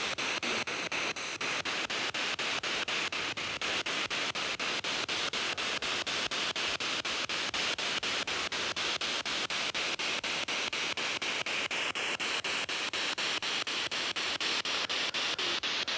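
SP7 spirit box sweeping the radio band: steady white-noise static chopped into short pulses about four to five times a second, with no voices coming through.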